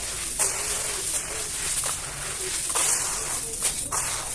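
Chunks of black cement and sand being crumbled and crushed by hand: a steady gritty crackle with sharp crunches every half second or so.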